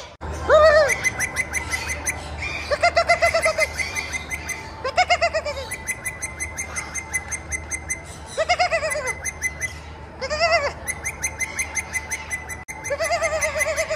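An animal calling over and over: wavering, bleat-like calls that each rise then fall in pitch over about half a second, with a longer, held call near the end, and a faint fast high chirping underneath.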